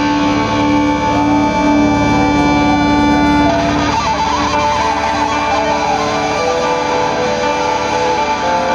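Indie rock band playing live, led by electric guitar holding ringing chords, which change about three and a half seconds in.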